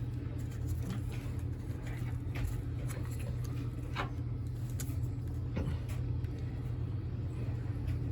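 A steady low hum with a few faint, scattered clicks from small plastic clips being worked loose on a toy parrot's plastic body shell.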